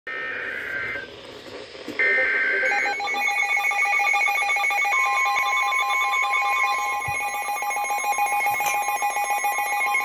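Two bursts of the warbling SAME data header that opens an Emergency Alert System broadcast, then several NOAA weather radios going off together with rapid pulsing alarm beeps at different pitches. From about five seconds in, the steady 1050 Hz NOAA Weather Radio warning tone sounds under the beeps.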